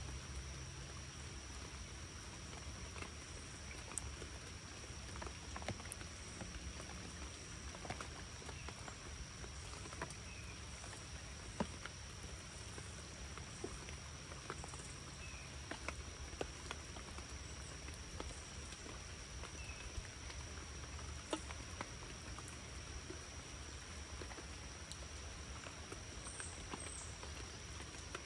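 Rain falling, with scattered raindrops tapping close by at irregular moments over a steady low rumble and a steady high, thin tone.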